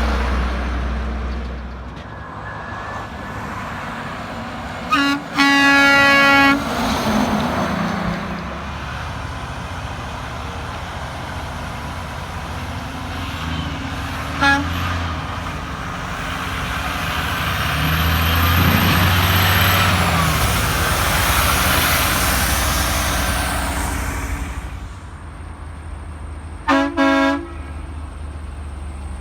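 Trucks going by, one sounding an air horn: a short toot then a longer blast about five seconds in, a brief toot near the middle, and two quick blasts near the end. Between the blasts is the steady noise of truck engines and tyres, loudest as a truck passes a little after halfway.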